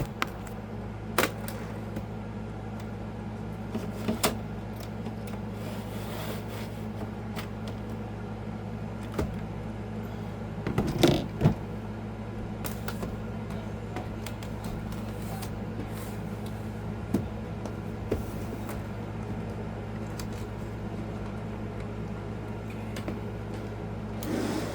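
Steady low machine hum, with a few short clicks and knocks scattered through it and a louder pair about eleven seconds in.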